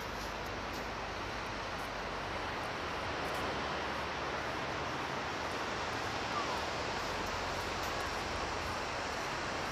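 Steady rushing outdoor background noise with no distinct events, only a few faint ticks.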